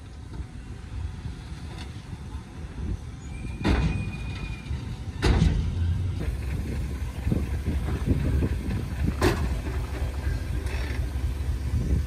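Heavy diesel earthmoving machinery running with a steady low rumble, with sharp clanks about four, five and nine seconds in. It gets louder from about five seconds on.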